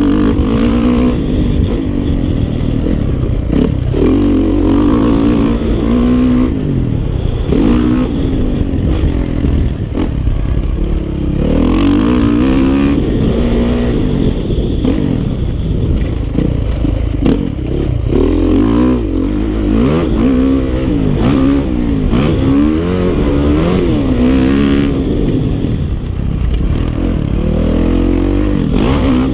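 Dirt bike engine being ridden hard, its pitch climbing and falling again and again as the throttle is opened and closed.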